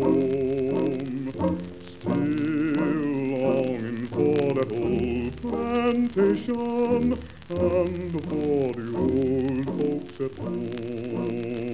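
Vocal music: singing in long held notes with vibrato, with a brief break about two seconds in.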